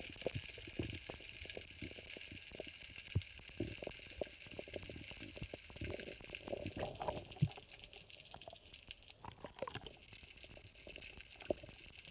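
Underwater water ambience picked up by an action camera: a steady high hiss with scattered small clicks and knocks.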